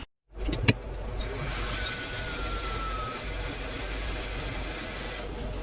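A click just under a second in, then a steady blowing hiss over a low hum, typical of a hot air rework station heating an iPhone 6s logic board to lift off the NAND memory chip.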